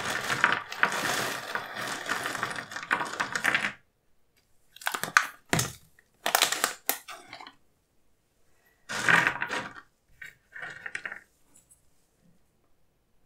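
Small crunchy cereal pieces pouring out of a foil pouch onto paper: a dense rapid clatter with foil crinkling that stops about four seconds in. After it come several short separate crinkles and rustles as the foil pouch and cereal are handled.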